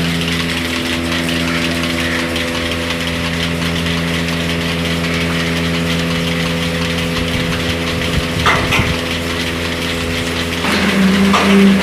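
An engine or motor running steadily at an even pitch, with a couple of short knocks about two thirds of the way through and a louder, shifting hum near the end.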